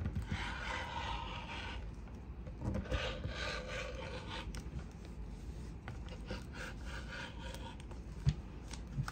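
Rotary cutter rolling through swim lining fabric on a cutting mat: a scratchy rasp in about three strokes of a second or two each, with a brief knock near the end.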